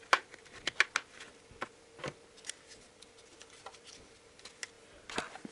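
Faint, irregular clicks and taps of a handheld digital multimeter being handled, its rubber protective holster being worked off.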